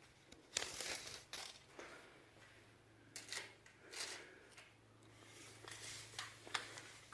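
Scattered short scrapes and rustles of a tape measure being handled and pulled out while measuring, with a faint steady low hum underneath from about two seconds in.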